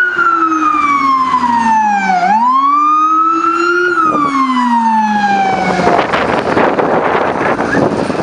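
Ambulance siren wailing in slow sweeps, falling, rising and falling again, then cutting off about six seconds in. Loud rough rushing noise follows.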